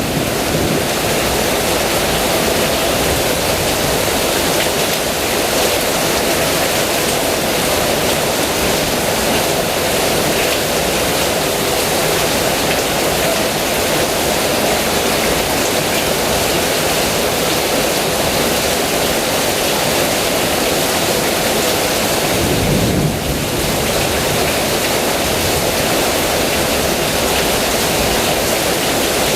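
Heavy rain falling steadily, a dense, even hiss. About three-quarters of the way in the hiss briefly thins and a short low thud sounds.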